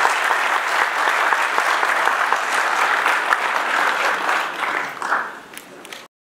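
Audience clapping in a hall, a dense, steady applause that eases off near the end and then cuts off suddenly.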